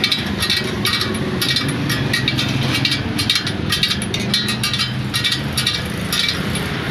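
Irregular light metallic clicks and clinks of steel spokes and nipples knocking against a chromed motorcycle rim as they are fitted by hand, over a steady mechanical rumble.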